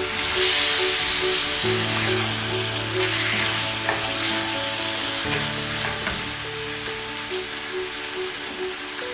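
Chicken pieces frying in a sticky honey sauce in a frying pan, sizzling steadily, with a spatula stirring and scraping through them; the sizzle swells loudest in the first second or so.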